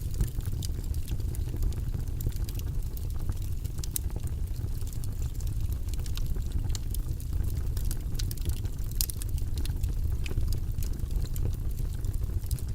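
Wood logs burning in a fireplace: irregular sharp crackles and pops over a steady low rush of the flames.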